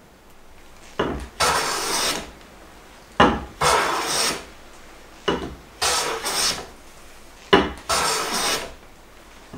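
Hand plane with a straight iron shaving a board's face: four strokes about two seconds apart, each a sharp knock as the plane lands and then a hiss of about a second as it cuts. The straight iron is taking off the slight ridges left by a cambered iron.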